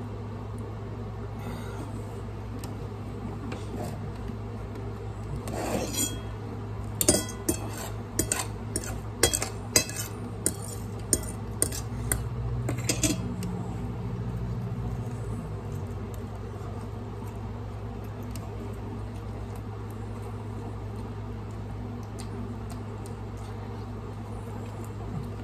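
Dishware clinking on a table: a run of about a dozen sharp clinks and knocks between about six and thirteen seconds in, over a steady low hum.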